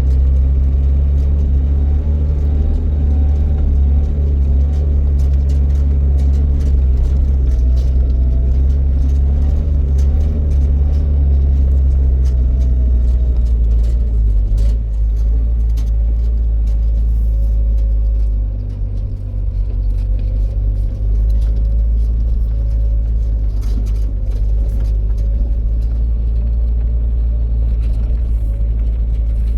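Motor vehicle engine running steadily with a low rumble while driving. Its pitch drops about halfway through, and the sound briefly eases a little later.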